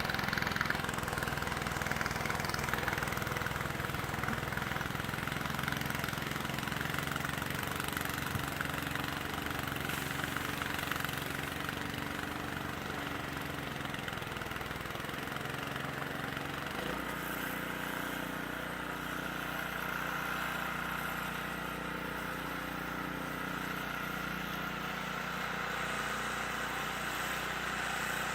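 An engine running steadily, with a change in its low note about 17 seconds in.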